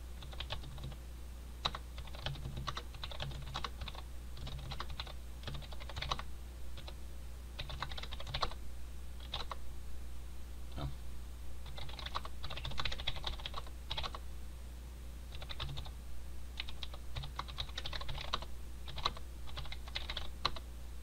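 Typing on a computer keyboard: irregular runs of quick key clicks with short pauses between bursts, over a steady low hum.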